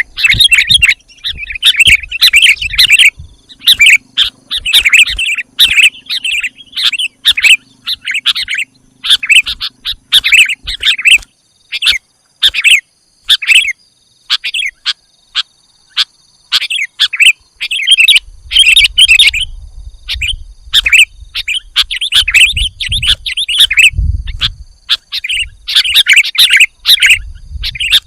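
Sooty-headed bulbuls calling: quick bright chirps in busy bursts, with a short pause midway. A faint low rumble runs under the calls in the second half.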